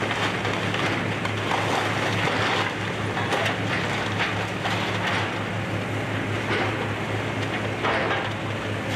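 Excavator's diesel engine running steadily, with irregular crunching and clattering of house-demolition debris as the machine works the wreckage.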